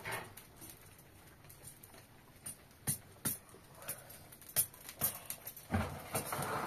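Wood fire crackling inside a sheet-metal barrel stove: scattered sharp pops and ticks, with a louder rustling stretch near the end.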